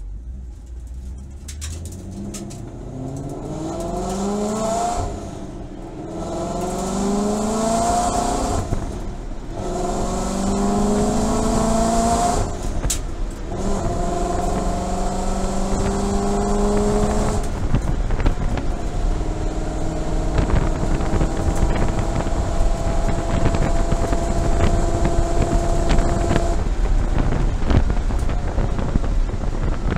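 Ford Boss 302S's 5.0-litre V8 pulling from walking pace up through the gears, its pitch rising in each gear with four upshifts. It then cruises steadily in fifth and coasts off the throttle near the end, with no rear-differential howl on the overrun: the new ring and pinion has cured it.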